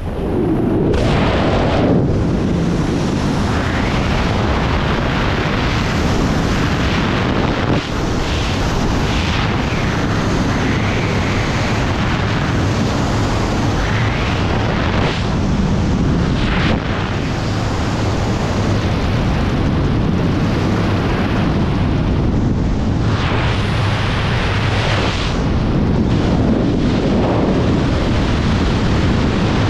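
Loud, steady rush of freefall wind buffeting the camera's microphone during wingsuit flight.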